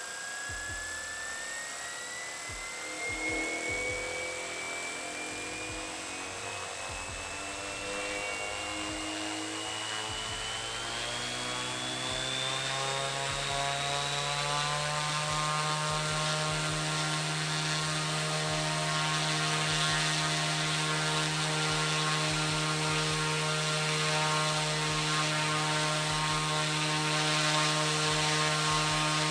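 Large 3D-printed Halbach-array brushless motor spinning a 16-inch propeller on a 4-cell battery in a thrust test: a propeller whir with an electric whine that rises in pitch as the motor speeds up over about fifteen seconds, then holds steady at top speed. The motor runs quiet and smooth.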